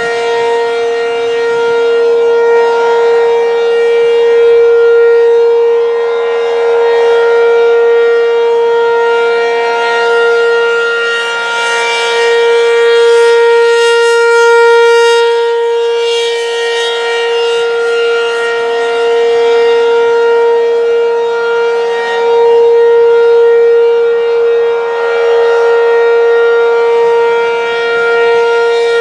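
ACA P-15 rotating outdoor warning siren sounding a steady alert tone at a constant pitch. Its loudness slowly swells and fades as it turns.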